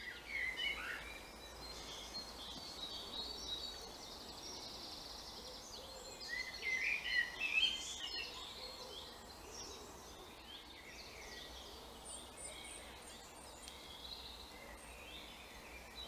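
Woodland birdsong: several small birds singing and chirping at once, with short trills and calls, busiest about six to eight seconds in.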